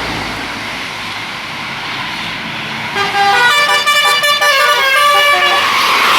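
Bus 'telolet' multi-tone air horn playing a quick tune of short stepped notes, starting about halfway through, over steady road and engine noise.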